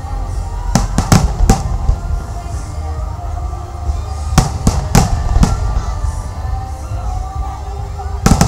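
Aerial fireworks bursting in quick volleys of sharp bangs: about four close together around a second in, four more between about four and five and a half seconds in, and another cluster near the end, over a steady low rumble.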